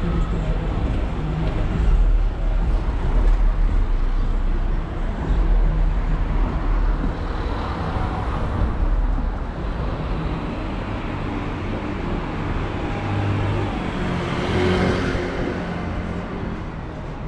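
Street traffic: a minibus and cars driving past on a narrow street, a steady low engine rumble with tyre noise, and a brief swell of hiss as a vehicle passes about three-quarters of the way through.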